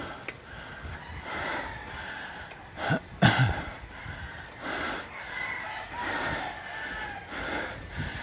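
A rooster crowing, over soft steps about once a second on a steep paved path, with one loud knock about three seconds in.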